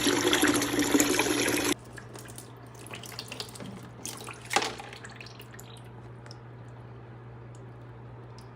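Water gushing out of a front-loading washer being drained, which stops abruptly about two seconds in. It is followed by scattered drips and small knocks over a steady low hum.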